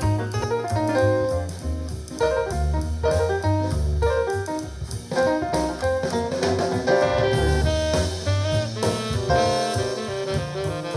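Jazz music with saxophone, drum kit, piano and a strong bass line, played back through a portable Bluetooth speaker and recorded for a sound test.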